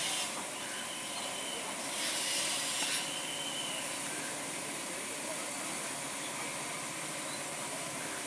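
Steady hiss and hum of an Indian ICF electric multiple-unit train standing at a platform, with a brief louder hiss about two seconds in.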